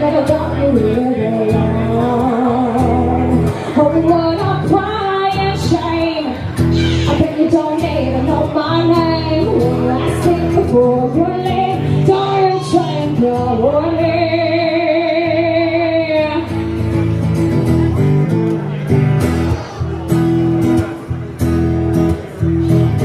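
Live country-pop band with a female singer and guitar, with a long held note with vibrato about two-thirds of the way through.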